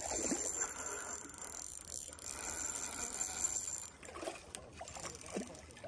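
Spinning reel being cranked while a hooked trout is played in on a bent rod, a light continuous mechanical whirr that stops abruptly about four seconds in, followed by a few faint clicks.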